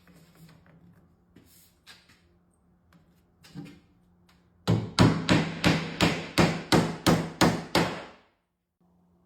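Hammer driving a nail, likely fastening metal drip edge along the roof rake: a few faint taps, then from about halfway a steady run of about a dozen sharp blows, about three a second.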